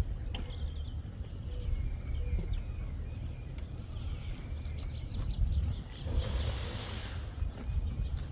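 Birds chirping over a steady low rumble, with a brief rush of noise about six seconds in.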